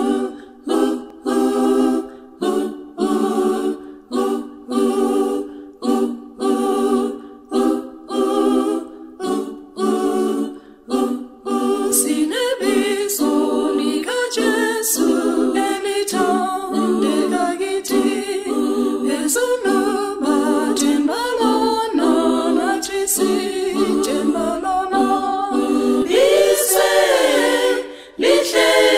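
Unaccompanied (a cappella) choir singing a hymn in isiNdebele in several-part harmony. For about the first twelve seconds it sings short, separate chords, a little over one a second, then it moves into flowing, held singing.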